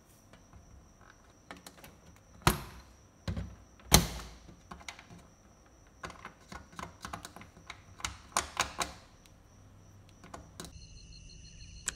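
Scattered sharp clicks and taps of a finger handling a small plastic screw cap on a metal door frame, with two louder knocks about two and a half and four seconds in and a quick run of taps about eight seconds in.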